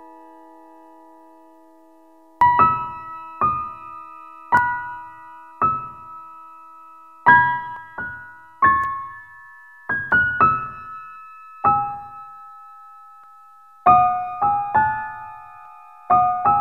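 Slow, sparse piano music: a held chord dies away over the first two seconds, then single notes are struck about once a second and left to ring.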